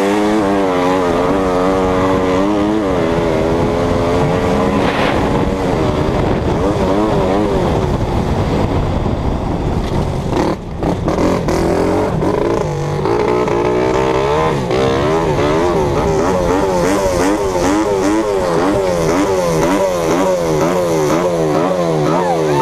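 Racing motorcycle engine heard close up, running hard with its pitch wavering quickly up and down. About ten seconds in it dips briefly, then picks up again.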